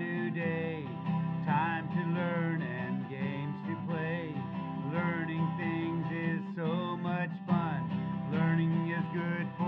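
Background music with guitar, a wavering melody line running over steady low notes.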